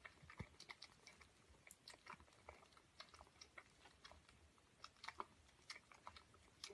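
Faint, irregular wet clicks and smacks of a kitten suckling from a baby-bottle nipple.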